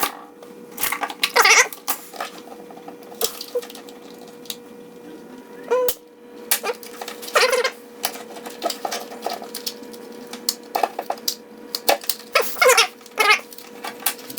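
Several short squeaks, each under half a second, spaced irregularly over a steady electrical hum.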